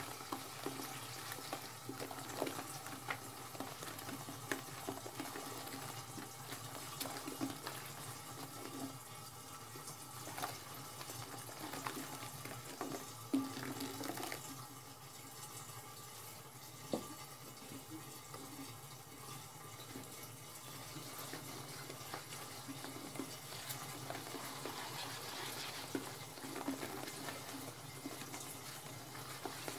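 Toilet brush swishing and scrubbing through sudsy water in a porcelain toilet bowl, with splashing and occasional sharp knocks of the brush against the bowl. The sound dies down to a softer wash about halfway through, then the scrubbing picks up again near the end.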